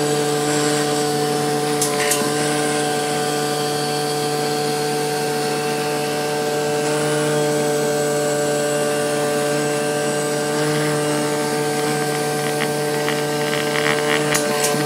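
DRD Rubber cutting machine running as its cutting head works a rubber sheet: a steady motor hum with a higher whine over it, and a few light clicks near the end.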